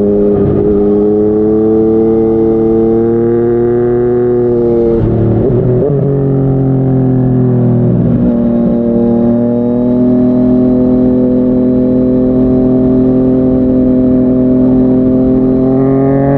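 Yamaha MT-09's three-cylinder engine through a Yoshimura R55 slip-on exhaust, pulling at speed on the highway. The note climbs, breaks and drops in pitch twice, around five and eight seconds in, then holds and slowly climbs again.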